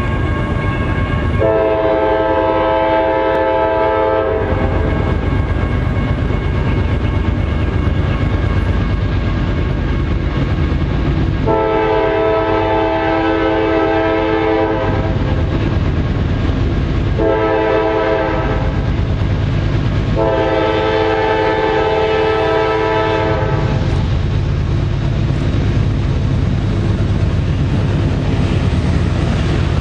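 Horn of a CSX freight train's leading GE diesel locomotive sounding the grade-crossing signal: long, long, short, long, each blast a chord of several notes. A steady low rumble from the approaching locomotives runs beneath it.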